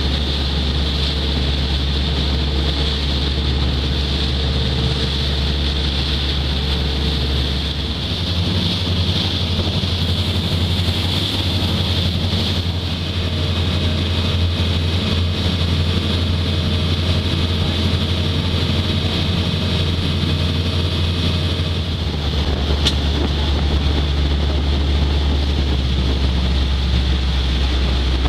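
Fishing boat's engine running steadily under way, with water rushing past the hull and wind on the microphone. The engine's drone shifts in pitch about a third of the way in and again near the end.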